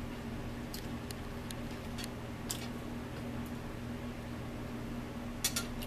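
Eating at a table: scattered soft clicks of a fork against a bowl and chewing sounds, with a quick cluster of clicks near the end, over a steady low hum.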